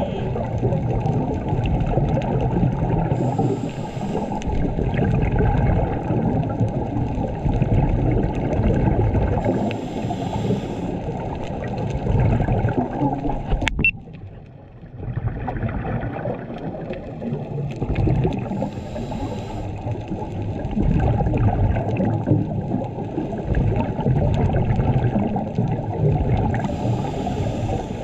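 Muffled underwater sound picked up through a camera housing on a scuba dive: a steady low rumble and gurgle, broken about every seven or eight seconds by a roughly one-second hiss of regulator breathing. About halfway through there is a sharp click, and the rumble dips for a second or two.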